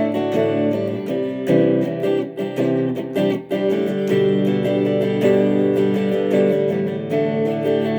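1970s Japanese-made Cortley Stratocaster-copy electric guitar played clean, picked chords ringing and changing every second or two.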